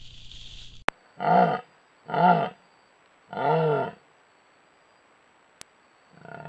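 Jaguar calling: three short pitched calls about a second apart, each rising then falling, and a fourth near the end. A sharp click comes just before the first call, and a fainter one falls in the pause.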